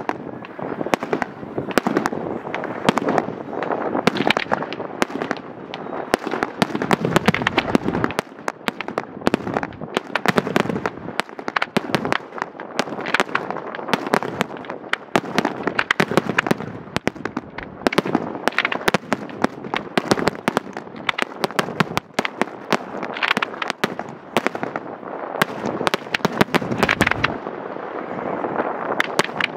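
Professional fireworks display: shells bursting in a dense, unbroken run of sharp bangs and crackles.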